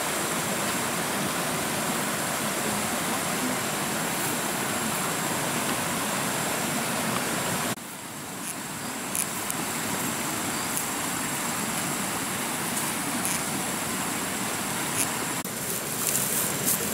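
Steady rushing of a shallow, rocky stream flowing over stones, with a few faint light clicks in the second half.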